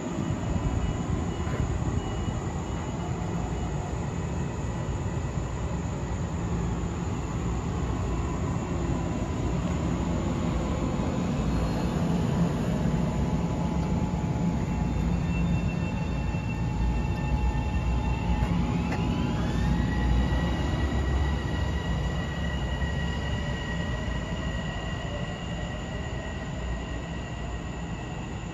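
Metro-North commuter train on the rails, with a steady heavy rumble of wheels and running gear. About two-thirds of the way through, the whine of its traction motors climbs in pitch and then holds steady.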